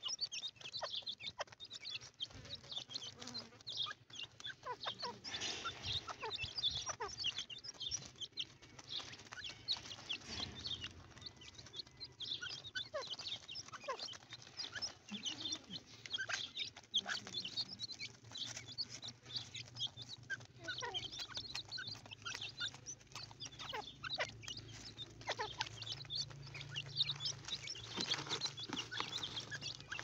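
A flock of young grey francolins (teetar) keeps up a constant stream of short, high chirping calls as they feed, over a faint low steady hum.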